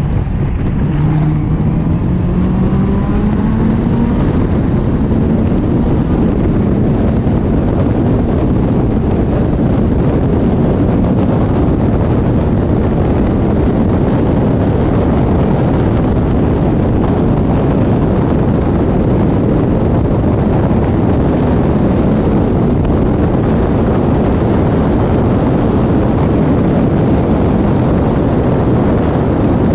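Caterham 420R's Duratec four-cylinder engine accelerating hard, its note rising in pitch over the first few seconds and then holding high and steady, over heavy wind rush across the open cockpit.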